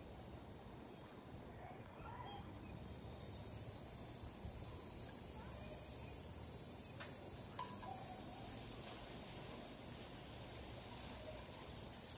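Steady high-pitched trilling of an insect chorus, which drops out about a second and a half in and comes back stronger a couple of seconds later. A couple of faint ticks sound near the middle.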